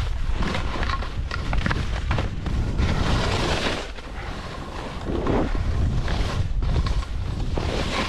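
Skis hissing and scraping through snow in repeated swishes during a downhill run, the loudest swish about three seconds in, over a constant low rumble of wind buffeting the camera microphone.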